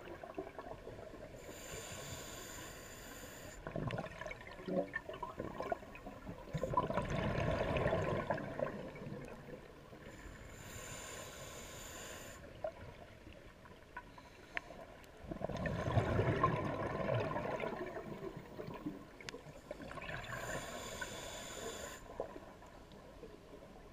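Scuba diver breathing through a regulator underwater: a hissing inhale, then a longer gurgle of exhaled bubbles, repeating about every ten seconds, with three inhales in all.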